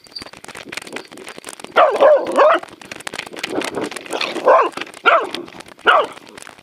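Dogs barking and yipping in several short bursts, the loudest a cluster about two seconds in, over a busy patter of small clicks.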